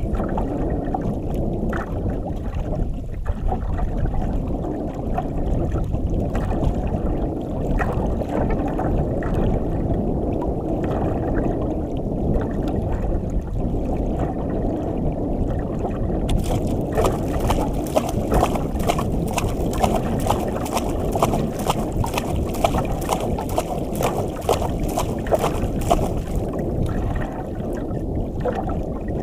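Sea water sloshing and lapping against the hull of a small wooden outrigger boat, with wind on the microphone. From a little past halfway until near the end, a fast, even ticking joins in.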